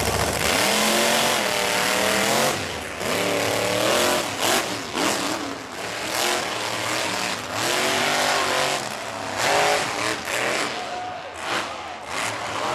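A school-bus-bodied monster truck's engine revving hard, its pitch climbing and falling back in repeated surges as the truck drives.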